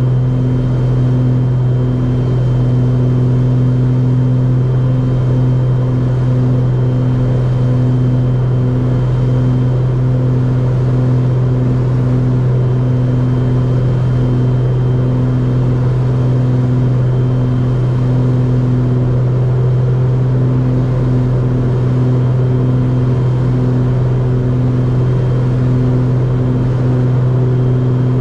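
Steady drone of the 1975 Beechcraft B60 Duke's twin piston engines and propellers in flight, with a higher tone that wavers in and out about once or twice a second.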